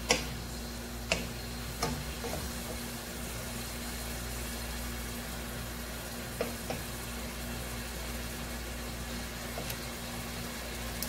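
Shrimp and vegetables sizzling in a pot as a wooden spoon stirs them, with a few sharp knocks of the spoon against the pot, the loudest right at the start and about a second in. A steady low hum runs underneath.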